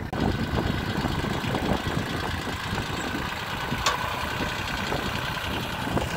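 VST Shakti MT 180D mini tractor's diesel engine running as the tractor drives carrying a heavy heap of straw raised on its rear hydraulic lift, with a single sharp click about four seconds in.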